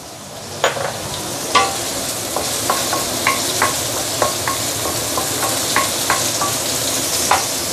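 Chopped garlic and char siu sizzling in hot garlic oil in a stainless steel wok, stirred with a wooden spatula that knocks and scrapes against the wok about three times a second, each knock giving a short metallic ring.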